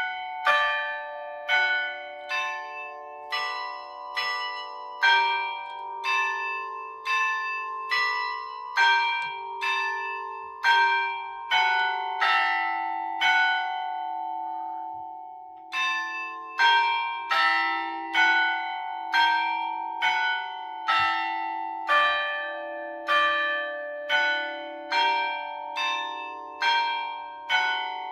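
Church tower bells ringing a hymn tune, one bell struck at a time at about one and a half strokes a second, each note ringing on under the next. The tune breaks off for about two seconds near the middle, then the next phrase starts.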